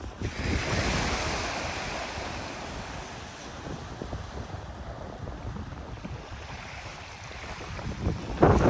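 Ocean waves breaking: one wave surges in about half a second in and slowly washes back out, and the next breaks louder near the end.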